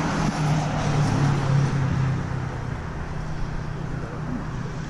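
A road vehicle passing by: its engine and tyre noise swells to a peak about a second or two in and then fades away.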